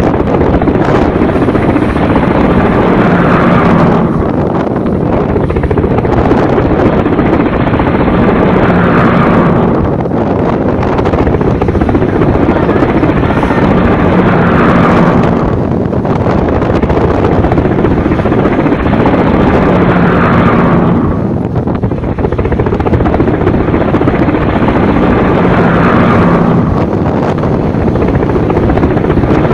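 Sea waves surging in and breaking against shoreline rocks: a loud, continuous rush of surf that swells and eases about every six seconds.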